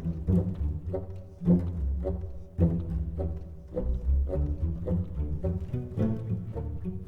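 Instrumental music with a heavy low bass line, strong notes landing about once a second.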